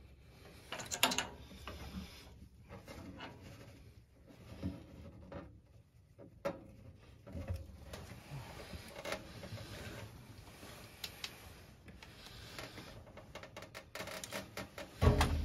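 Handling noises while a new furnace draft inducer motor is fitted: scattered clicks and light knocks of wires, plastic connectors and sheet metal. A louder knock comes about a second in, and another near the end.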